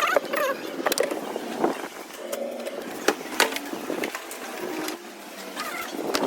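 Irregular clicks and knocks, with a few short squeaks near the start and again near the end.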